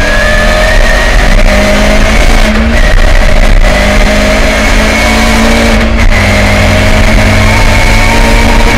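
Connaught Warrior 2.4 engine of a 1979 Ford Escort Mk2 rally car at full throttle, heard very loud from inside the cabin on a gravel stage. The engine note climbs steadily and breaks off briefly three times, at about two and a half, three and a half and six seconds in.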